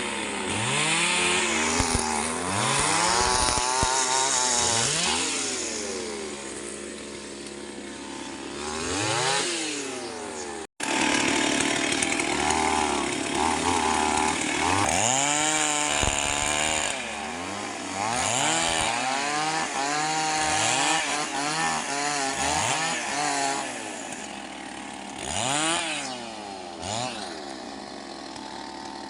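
STIHL MS 381 two-stroke chainsaw cutting mahogany, its engine pitch rising and falling over and over as it revs and pulls down in the cut. The sound drops out for an instant about ten seconds in.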